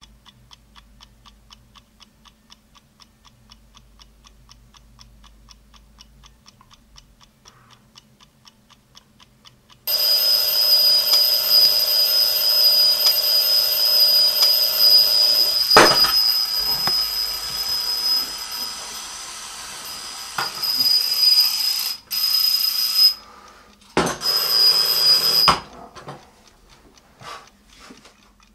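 Mechanical twin-bell alarm clock ticking steadily, then its bell ringing loudly about ten seconds in. The ringing stops, starts again for a moment and cuts off, and a few faint knocks follow.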